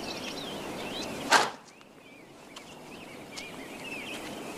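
A single sharp whoosh of a kick swishing through the air, a film sound effect, a little over a second in, over chirping birdsong.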